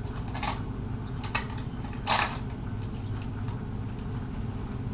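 Makeup pencils clicking against each other and a plastic cup as they are picked through: a few brief clicks in the first half, over a steady low hum.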